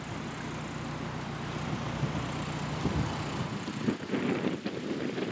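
Canal narrowboat's diesel engine running steadily as the boat passes close by, with some louder, uneven rumbling over the last second or so.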